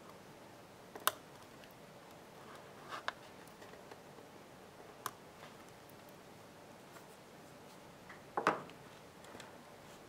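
Small cutters snipping short pieces off black heat-shrink tubing, with the light clicks of small parts and the tool handled on a hard tabletop. There are four sharp clicks a couple of seconds apart, and the last one, near the end, is a longer rattle.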